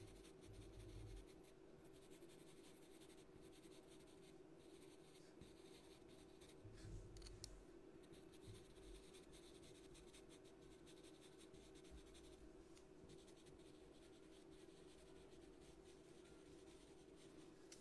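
Faint scratching of a pastel pencil stroking and shading across paper, in short light strokes, over a low steady hum.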